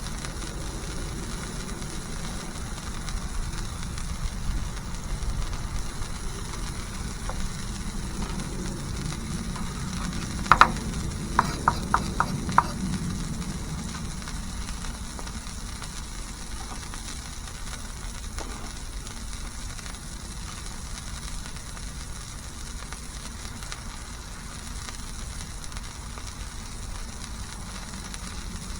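Smashburger patties sizzling steadily on a hot flat-top griddle. About ten seconds in there is a quick run of about six sharp taps.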